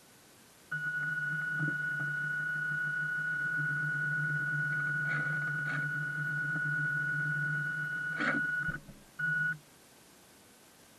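Electric drive motor of a radio-controlled model boat running at a steady speed, a constant high whine over a low hum, with a few light knocks. It cuts off near the end, gives one short burst, then stops.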